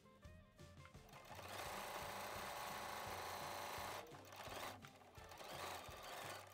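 Electric domestic sewing machine stitching through denim. It runs at speed for a few seconds, then in short stop-start spurts, over soft background music.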